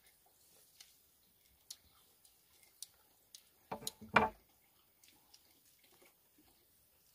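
A few faint clicks and ticks from handling small fruits. About four seconds in, a machete is set down on the wooden plank table with two quick, loud knocks.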